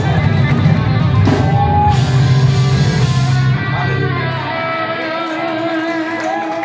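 Live worship band music led by electric guitar. About two-thirds of the way through the deep low part drops out, leaving a held chord with sliding guitar notes above it.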